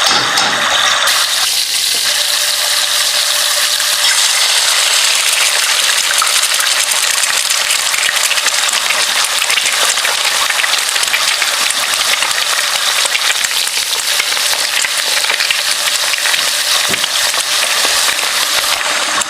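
Food frying in a hot pan: a steady, dense sizzle with fine crackling.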